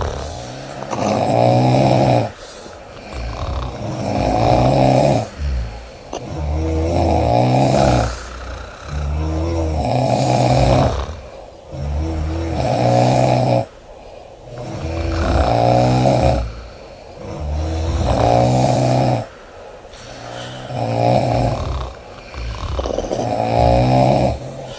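A woman snoring loudly, one snore with each breath, about every two and a half to three seconds.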